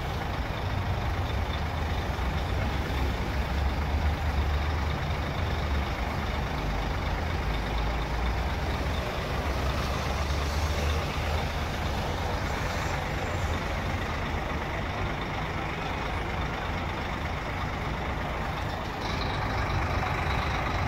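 Scania K400 coach's rear-mounted diesel engine running at low revs while the bus is backed up, a steady deep rumble that swells for several seconds in the first half.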